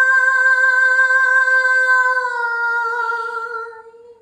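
A woman singing solo without accompaniment, holding one long high note that fades out just before the end.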